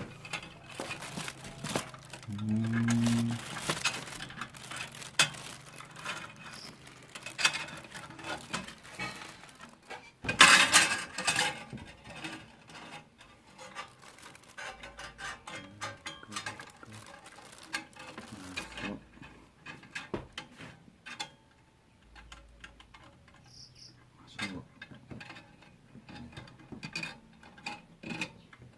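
Irregular clinking, knocking and rattling of metal parts and hand tools being handled while a mini band saw is assembled, with a louder burst of rattling about ten seconds in.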